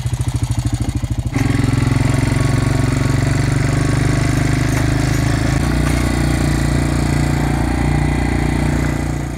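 ATV engine towing a grain auger. It runs with an even pulsing at first, gets louder and smoother as it takes the load about a second in, and settles slightly lower in pitch about halfway through.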